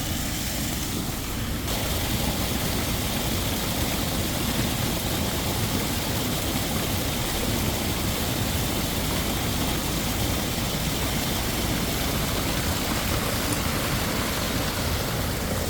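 Steady rushing of a waterfall, a constant roar of falling water that grows fuller about two seconds in.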